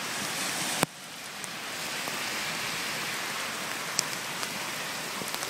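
Steady spring rain hissing on pavement and wet ground, with scattered drops ticking. A single sharp click comes a little under a second in, after which the rain sound drops and swells back.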